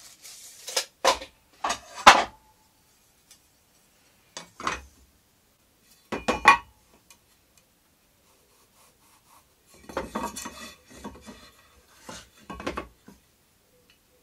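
Short scraping and rubbing strokes with a metallic edge: a tape measure, pencil and aluminium extrusion straightedge handled and slid on pine timber while marking out. There are about six separate bursts, in two groups near the start, two single strokes in the middle and a longer stretch near the end.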